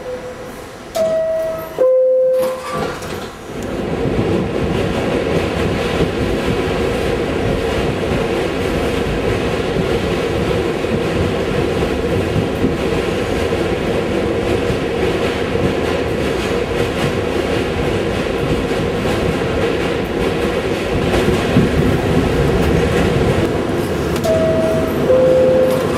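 New York City subway car: a two-note descending door chime about a second in. Then the train gets under way and runs steadily with a loud rumble and rattle. The two-note chime sounds again near the end.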